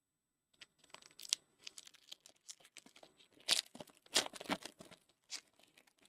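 A trading-card pack's wrapper being torn open and crinkled by hand, a string of irregular rips and rustles, loudest near the middle.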